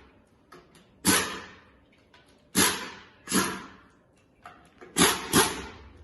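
Five loud, sharp bursts, one on its own and then two pairs, each starting suddenly and dying away over about half a second.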